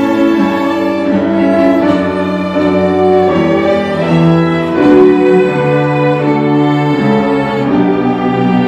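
A small string ensemble led by violins plays in harmony, with long bowed notes moving from chord to chord.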